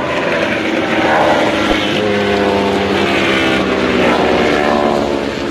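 A motor engine sound effect, running with its pitch swelling and falling away twice, like a vehicle passing by.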